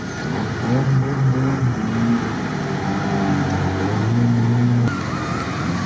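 An off-road vehicle's engine revving, its pitch rising and holding at a few steady levels in turn as it works through mud.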